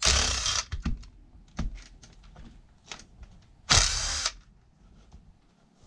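Power drill run in two short bursts of about half a second each, at the start and about four seconds in, removing a wheel from a small RC truck, with small clicks of parts being handled between.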